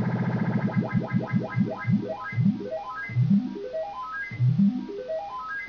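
Synthesizer VCO pitch-modulated by the MFOS voltage quantizer in fourths mode: the tone climbs a staircase of discrete steps a fourth apart, then drops back to the bottom and climbs again. The climbs come several a second at first and slow to about one every second and a bit as the input ramp is slowed.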